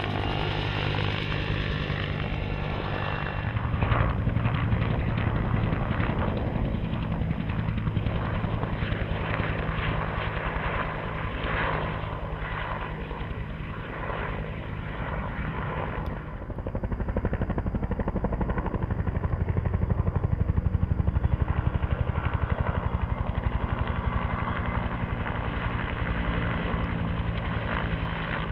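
Bell UH-1 Huey helicopter in flight, its main rotor beating in a rapid, steady pulse over the turboshaft engine's drone. It grows louder about four seconds in and again past the middle.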